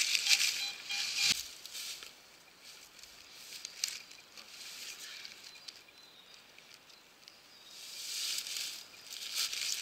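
Dry fallen leaves rustling and crunching: loud in the first second or so, then quieter, then rising again near the end as someone walks through the leaf litter.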